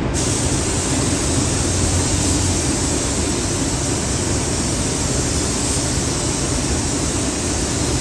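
Gravity-feed spray gun hissing steadily on compressed air as it sprays a coat onto the truck body, the hiss cutting in as the trigger is pulled right at the start. A low steady rumble runs underneath.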